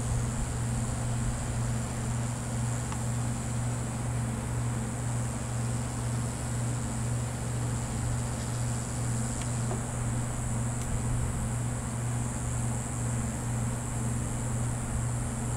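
A steady low mechanical hum with a faint high hiss over it.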